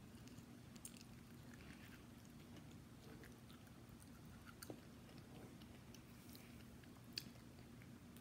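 Faint chewing of a fried snack, with scattered soft crunches and clicks over a low steady hum; the sharpest click comes near the end.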